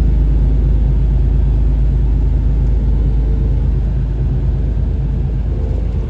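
Steady low rumble of a moving car, road and engine noise heard from inside the car, easing slightly near the end.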